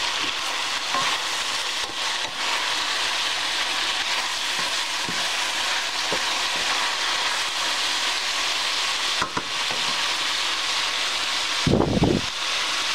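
Beef and snow pea stir-fry sizzling steadily in a stainless steel skillet, with a wooden spatula stirring it and knocking lightly now and then. A brief loud low rumble near the end.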